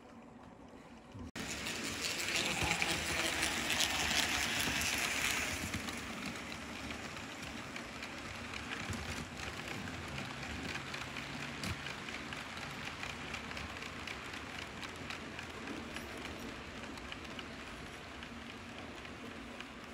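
1/80-scale (J gauge) model train running on its track: a steady rattling roll of small metal wheels with a fast patter of clicks over the rail joints. It starts about a second in, is loudest for the next few seconds, then settles a little.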